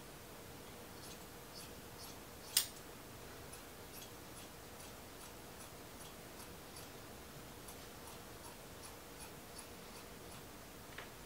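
Scissors cutting through a blanket, snipping steadily with about two or three faint clicks a second. There is one louder, sharper snip about two and a half seconds in.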